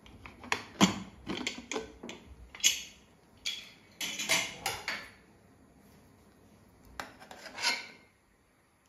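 Aluminium pressure cooker lid being worked loose and lifted off, a quick run of metal clicks and clanks. After a short pause, a steel spoon knocks in the pot a couple of times as the boiled tapioca is stirred.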